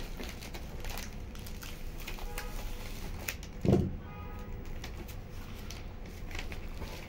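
Hands working adhesive contact paper onto a cardboard box: scattered light taps and rustles, with one dull thump a little past the middle.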